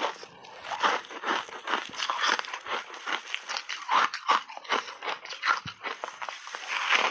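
Frozen pink shaved ice coated in milk powder crunching and crackling as gloved hands break it apart, then a crunching bite into a chunk near the end, picked up close by lapel microphones.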